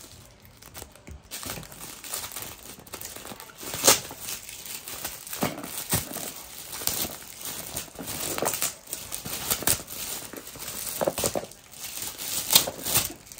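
Shiny holographic gift-wrapping paper being torn and crumpled by hand as a gift box is unwrapped: irregular crinkles and tears, with the sharpest rips about 4 seconds in and near the end.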